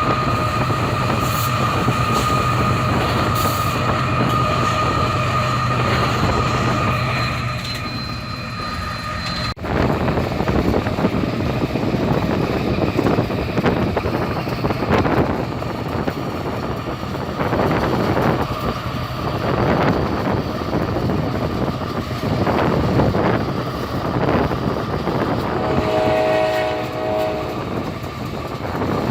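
Diesel train running on the rails: for about the first ten seconds a steady mechanical whine over the rumble, then after an abrupt cut a rumbling, clattering run of wheels over the track. A short horn blast sounds a couple of seconds before the end.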